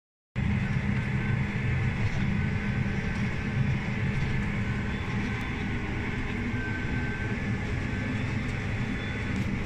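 Claas Axion 960 TerraTrack tractor's six-cylinder diesel engine running steadily under way, a deep drone heard from inside the cab as the tracked tractor crosses a field.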